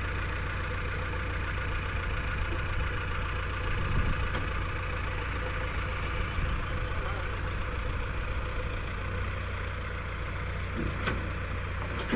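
Diesel engines of JCB 3DX backhoe loaders idling steadily, with a single short click near the end.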